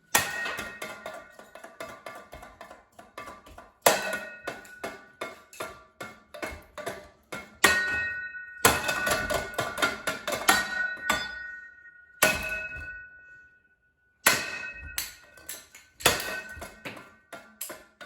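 Plastic ceiling fan blades being struck and shattering: rapid clattering impacts with pieces clinking and rattling down. The clatter comes in several bursts with short pauses, and there is one brief silence about two-thirds of the way through.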